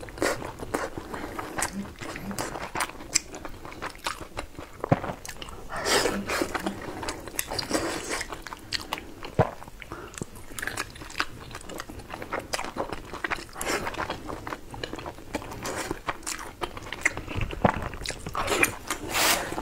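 Close-miked biting and chewing of pan-fried dumplings in chili oil, with a steady run of small clicks and wet mouth sounds.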